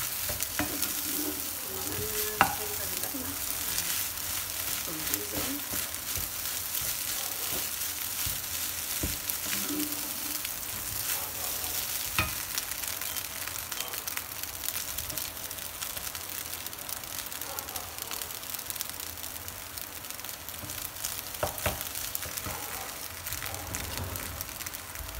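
Fried rice sizzling in a non-stick frying pan as it is stirred and turned with a wooden spatula. A few sharp knocks of the spatula against the pan stand out, the loudest about two and a half seconds in.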